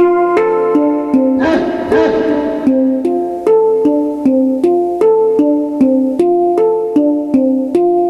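Electronic keyboard played through an amplifier, picking out a steady repeating run of single notes, about two or three a second, in a plucked-string tone. A brief rushing swell comes in about a second and a half in.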